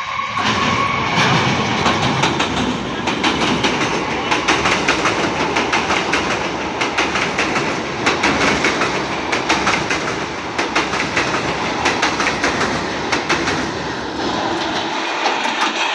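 EMU electric local train passing close at speed over steel girder track, its wheels clattering in a rapid rhythm over the rail joints. The low rumble falls away near the end as the last coaches go by.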